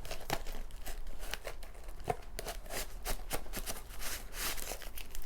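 Irregular rustling and crinkling of paper and plastic packaging being handled, with small clicks and taps as album contents are pulled out and sorted.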